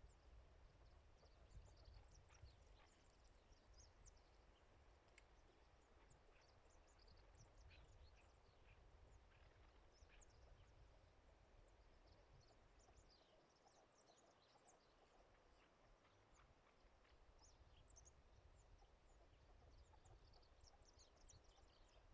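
Near silence: faint outdoor ambience with many scattered short, high chirps and a low rumble that fades for a few seconds midway.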